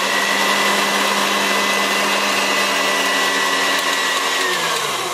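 KitchenAid stand mixer motor running steadily with a high whine, whipping egg whites and sugar toward stiff peaks. Near the end it winds down, dropping in pitch as it is switched off.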